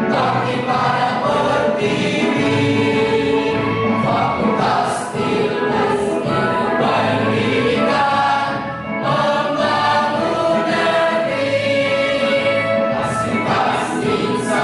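A mixed choir singing in harmony over a steady accompaniment with a regular low beat.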